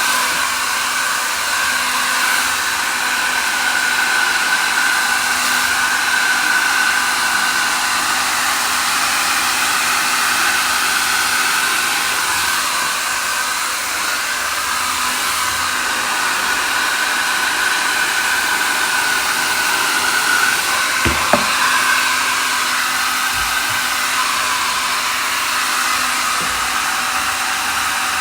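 Xiaomi Mi Ionic Hair Dryer H300 running steadily on its medium heat setting: a constant rush of air with a steady whine over it. There is a brief knock about two-thirds of the way through.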